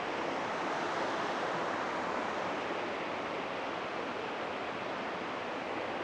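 Steady rush of a small waterfall and shallow creek water cascading over rock ledges.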